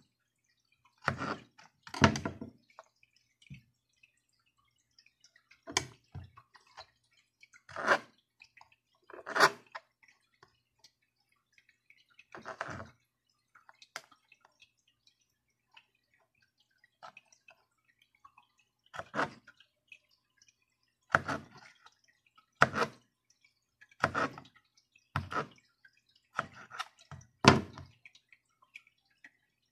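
Kitchen knife cutting small pieces of carrot on a plastic cutting board: irregular short knocks of the blade against the board, about a dozen, a second or more apart with quiet between.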